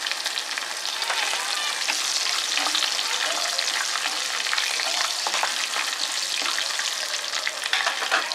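Roasted peanuts, curry leaves and green chillies frying in hot oil in a pan. They sizzle with a steady hiss and crackle as they are stirred.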